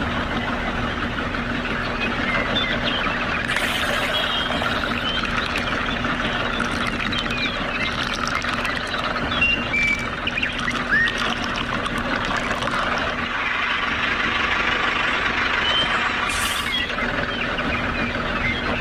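A small motor running with a steady hum, with birds chirping through it.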